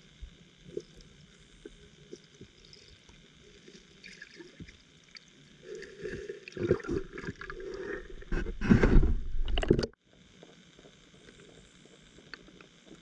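Underwater recording through a camera housing: faint ticks and clicks, then about six seconds in gurgling water noise builds into a loud bubbling rush of air bubbles around the camera. The rush cuts off suddenly near ten seconds.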